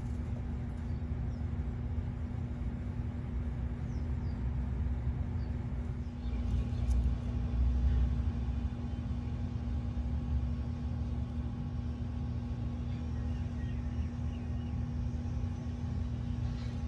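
Steady low rumble with a constant low hum, swelling for a couple of seconds in the middle.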